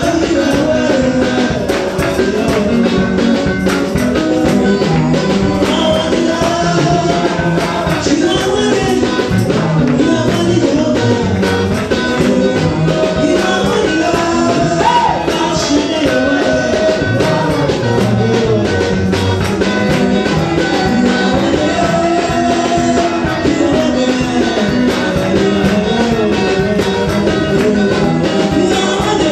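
Live church praise-and-worship music: voices singing over instruments with a continuous beat.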